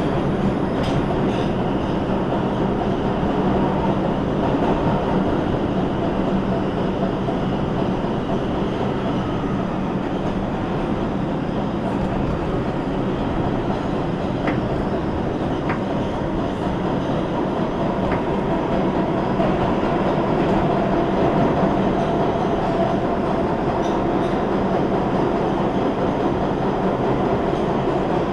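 A New York City subway train, a 5 express, running between stations, heard from inside the car: a steady rumble of wheels on the rails with a few light clicks.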